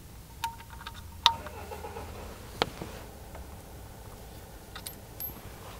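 Ratchet and socket working on a sump plug: a few separate sharp metal clicks, the first two leaving a brief ring, with fainter ticks near the end.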